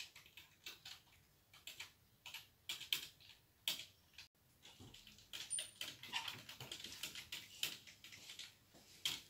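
Typing on a computer keyboard: irregular clicking keystrokes, some in quick runs.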